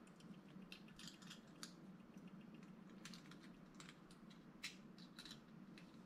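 Faint, irregular small clicks and ticks of a diecast toy car's parts being handled and fitted together by hand, over a low steady hum.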